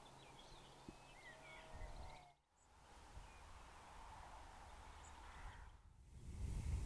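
Faint birdsong over quiet open-country background. The sound drops out completely for a moment about two and a half seconds in, and a low rumble rises near the end.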